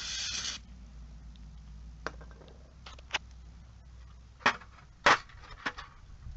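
Aerosol carburetor cleaner spraying with a hiss that stops about half a second in, followed by a handful of sharp clicks and knocks, two of them louder, about a second apart.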